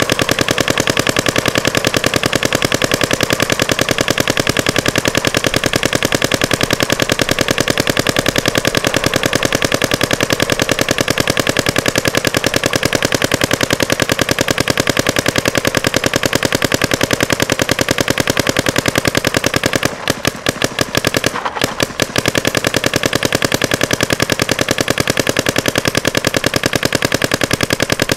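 Electronic paintball marker firing in rapid, continuous bursts of shots, with two brief pauses about two-thirds of the way through.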